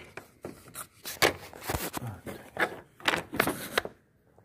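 Irregular clicks, knocks and scraping as parts in a car's engine bay are handled close to the microphone. The sounds come thickest from about a second in until shortly before the end.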